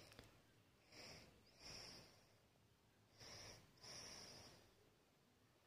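Faint breaths close to the microphone, four soft puffs in two pairs.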